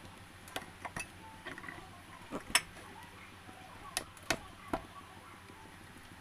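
Kitchen items being handled: a scattered series of sharp knocks and clicks, about nine in all, the loudest about two and a half seconds in.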